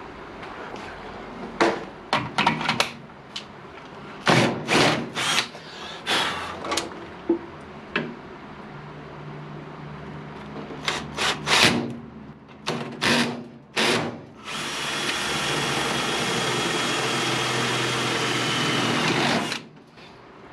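A power drill runs steadily for about five seconds near the end and then stops sharply. Before it come a string of sharp knocks and clatters of tools and parts being handled.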